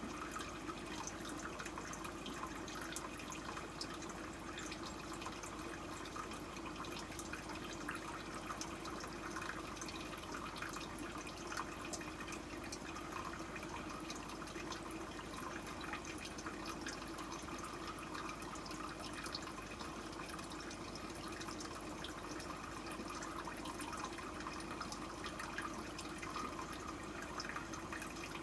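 Aquarium water trickling and bubbling steadily, with many tiny drips and pops throughout.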